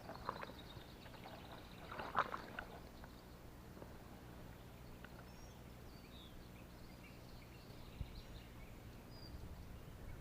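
Quiet riverside ambience with faint, scattered high bird chirps. There is a short noise about two seconds in and a low thump near eight seconds.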